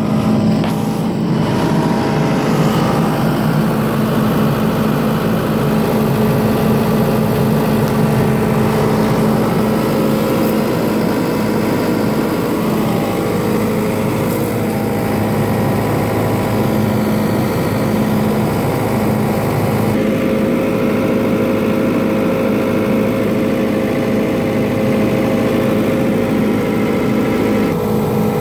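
John Deere 75D excavator's diesel engine running steadily at an even pitch.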